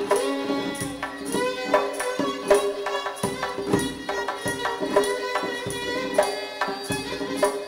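Persian classical violin playing a melody in dastgah Homayoun, with held bowed notes. Underneath it a tombak (goblet drum) keeps a steady rhythm of hand strokes.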